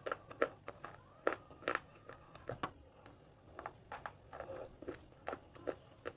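A series of crisp crunches from something brittle being crushed, about two or three sharp cracks a second at an uneven pace.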